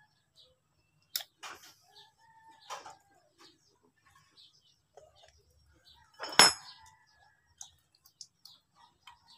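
Chickens clucking in the background, with scattered small clicks and one loud, sharp click about six and a half seconds in.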